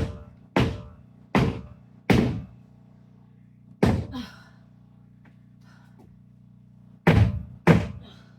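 Heavy thuds at uneven intervals, over the steady low hum of a portable generator.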